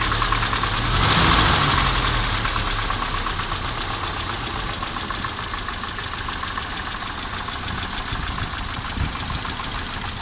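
Mercedes 190E two-litre four-cylinder petrol engine revved briefly about a second in, then dropping back to idle with a dull ticking knock. The owner suspects a camshaft loose in its bearings or clattering hydraulic lifters.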